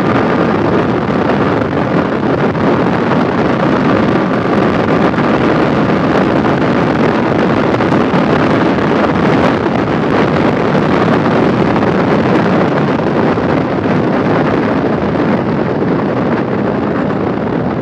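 Heavy wind rush on the microphone of a Yamaha R15 V4 sport bike ridden at highway speed, with the bike's engine running underneath. Steady and loud, without a break.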